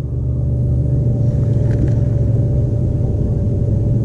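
Boat motor running steadily: a low drone with a thin higher hum over it, swelling slightly in the first second and then holding level.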